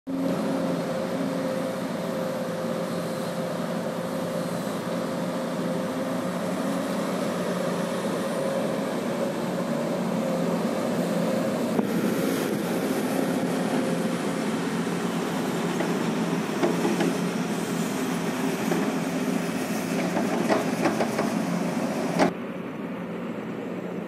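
Diesel engine of heavy construction machinery, led by a crawler excavator, running steadily: a constant engine hum with a few held tones, which turns rougher and busier with scattered clicks about halfway through. A sharp knock near the end, after which it is quieter.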